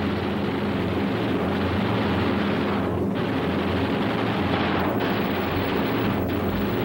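Steady drone of piston-engined aircraft: a low, even engine hum with a rough noisy layer over it.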